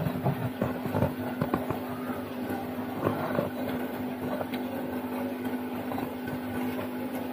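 Plastic fish-transport bag crinkling and crackling as it is handled and opened in the tank, the crackles thickest in the first few seconds and sparser after, over a steady low hum.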